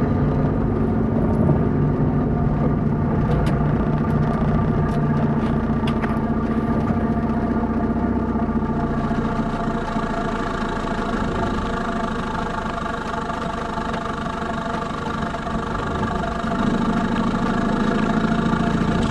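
Car exhaust fitted with an integrated exhaust cutout, the engine running at a steady speed with a constant drone. A few light ticks sound in the first several seconds, and the sound stops abruptly at the end.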